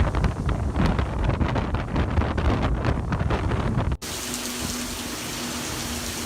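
Hurricane wind buffeting the microphone in gusts, with splashing water. About four seconds in, it cuts abruptly to the steady hiss of heavy rain.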